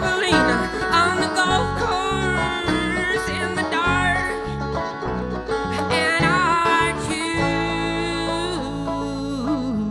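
Live folk band playing a country-style tune: a bass line stepping from note to note under a melody that bends in pitch, settling onto one long held low note about seven seconds in.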